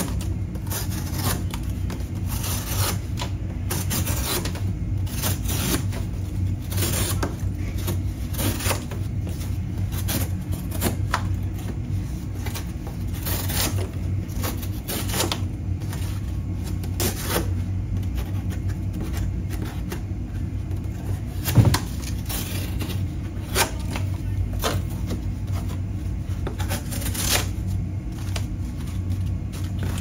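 Folding pocket knife slicing through corrugated cardboard, a string of short scraping cuts and cardboard rustles, with a blade that is not freshly sharpened. A steady low hum runs underneath, and a sharper knock stands out about twenty-one seconds in.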